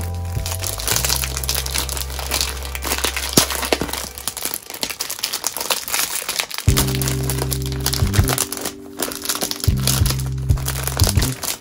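Clear plastic packaging sleeve crinkling and rustling as a flat card box sheet is slid out of it, over background music with sustained low notes.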